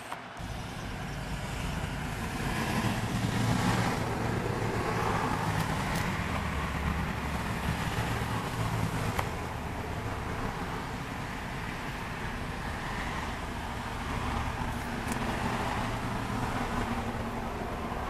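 Road traffic noise, swelling and easing as vehicles pass, twice.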